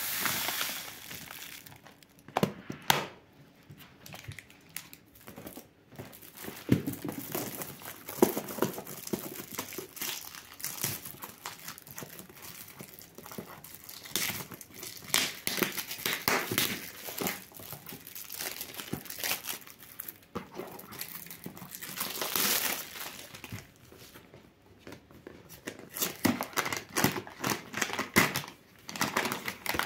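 Paper and cardboard packaging of a loose-leaf tea box crinkling, rustling and tearing as it is opened by hand, in irregular bursts of short crackles.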